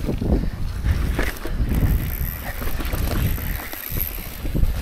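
Mountain bike rolling down a dry, rocky dirt singletrack: a steady rumble of tyres on the dirt with knocks and rattles as the bike hits bumps.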